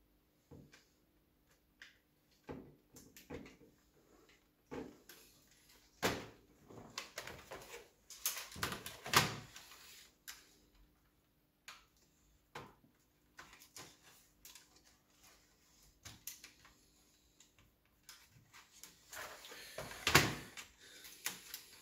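Fujitsu laptop's plastic case and internal parts being handled and fitted by hand: an irregular scatter of clicks, knocks and scrapes, loudest about six and nine seconds in and near the end.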